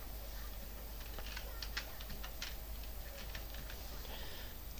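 Computer keyboard keys clicking as a short word is typed, in a few irregular keystrokes.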